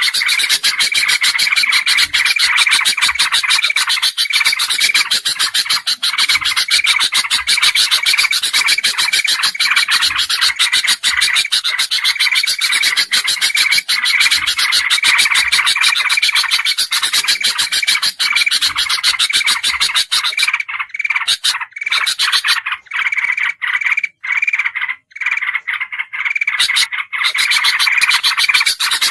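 Bird-lure recording of bulbuls (kutilang and trucukan) calling noisily: a dense, rapid, unbroken chatter of repeated notes. About two-thirds of the way through it thins out and breaks up with short gaps for several seconds, then comes back full.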